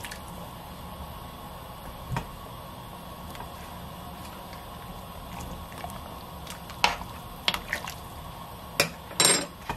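Water heating in a stainless steel pot with beef short ribs, coming up to the boil: a steady bubbling hiss. In the second half a ladle stirs in the pot, giving a few short knocks and splashes, the loudest near the end.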